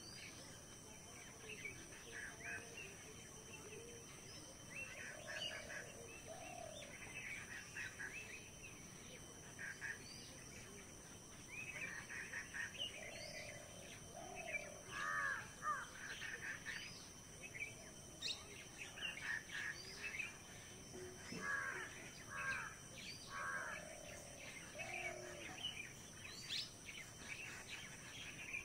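Several birds chirping and calling in short repeated phrases, faint, over a steady high-pitched hum and a soft outdoor background.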